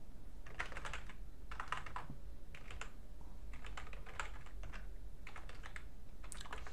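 Typing on a computer keyboard: quick runs of keystrokes in several bursts with short pauses between them.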